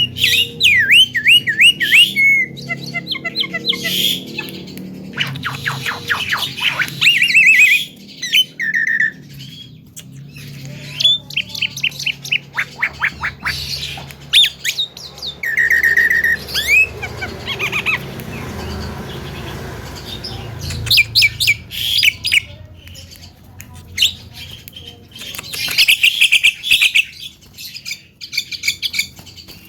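Javan myna (jalak kebo) calling: loud runs of squawks, fast chirping trills, whistled notes and clicks in bursts with short pauses between them.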